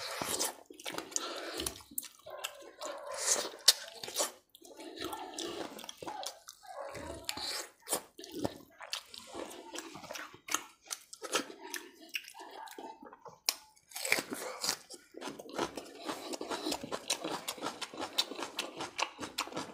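Close-miked chewing and biting of chicken curry, heard as a continuous run of irregular mouth clicks and noisy mouthfuls.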